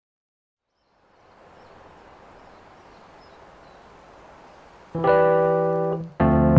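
Background music. Silence, then a faint hiss from about a second in, then a sustained chord about five seconds in that breaks off after a second. A fuller music passage starts just before the end.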